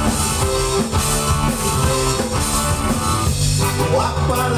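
Live rock band playing an instrumental passage, with electric guitar over a steady drum kit and bass beat.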